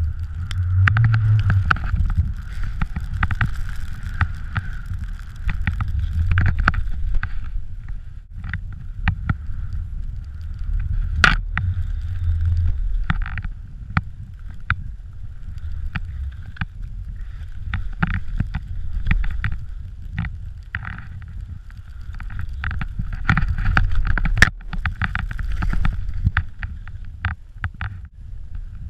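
Skis hissing through deep powder snow with wind rushing on the microphone, swelling and fading with each run of turns, scattered with sharp clicks and knocks.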